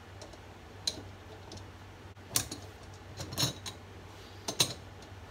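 A handful of short, sharp metal clicks and clinks, irregularly spaced about a second apart, as a waste disposer's metal mounting ring and lock hardware are fitted onto the sink flange underneath the sink.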